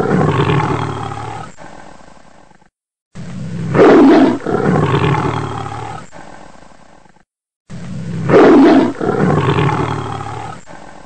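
A loud roaring sound effect, the same clip looped: each play starts abruptly and dies away over about three seconds, with dead silence before it starts again about every four and a half seconds.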